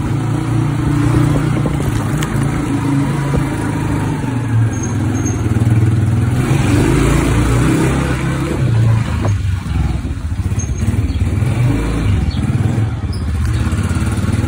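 Honda motorcycle engine running steadily while the bike is ridden along a road, with wind noise over the microphone.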